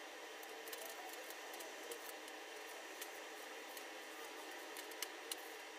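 Faint steady hiss with scattered light clicks and ticks.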